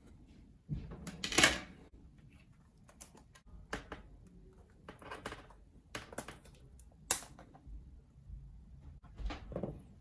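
Irregular clicks, knocks and scrapes of plastic laptop parts being handled and worked apart during disassembly, with a louder clatter about a second in.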